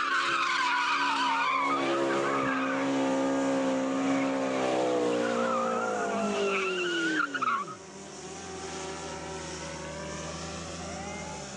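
McLaren supercar's twin-turbo V8 held at high revs while the rear tyres squeal and skid through a smoky burnout donut. About seven seconds in the revs drop away and the squeal stops, leaving the engine idling much more quietly.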